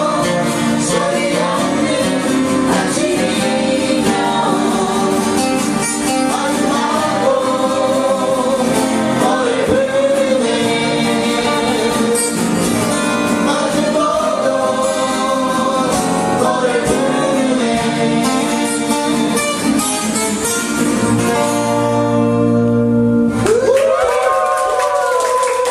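Several voices singing a folk-style song together over strummed acoustic guitars. Near the end the guitars stop and a voice holds one long final note.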